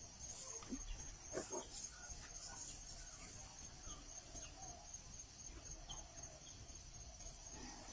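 A steady, finely pulsing high insect chorus, with a few short, louder sounds about a second and a half in.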